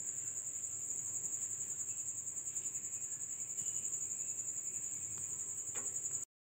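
A cricket chirping in a steady, high, fast-pulsing trill that cuts off near the end.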